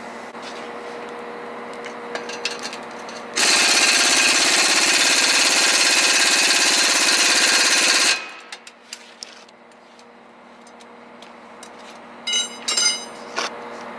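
Impact wrench hammering steadily on a bolt for about five seconds and stopping suddenly, used to take down the gearbox for a clutch replacement. A few sharp metallic clinks follow near the end.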